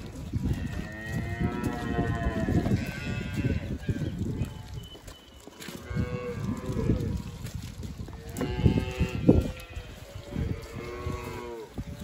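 Calves bawling: about four drawn-out calls, the first and longest lasting a few seconds, over a low rumbling noise.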